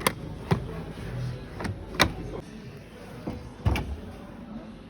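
A handful of sharp clicks and knocks at uneven intervals, about five in all, over a low background hum.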